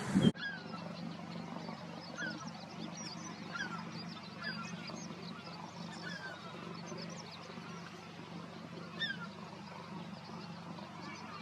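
Birds calling: many short chirping calls scattered through, over a steady low hum. A louder sound cuts off abruptly a moment in.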